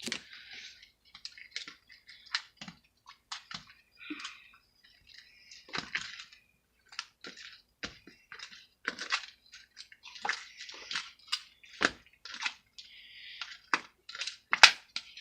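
Slime mixture of glue, borax activator and water being stirred in a container: irregular wet squishing and clicking of the utensil against the thickening goo and the container.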